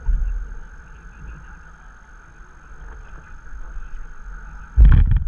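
Stand-up paddleboard on the water heard through a board-mounted action camera: a steady hiss with low, uneven rumbling of wind on the microphone. Near the end, a sudden loud burst of knocks close to the microphone.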